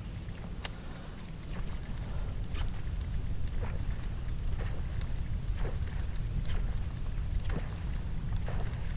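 Canoe paddle strokes in the water, a short splash about once a second, over a steady low rumble.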